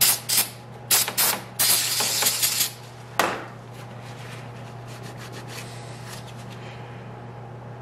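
Aerosol cleaner sprayed onto oil pump gears over a rag in several short hisses and one longer one, stopping about three seconds in. A steady low hum runs underneath.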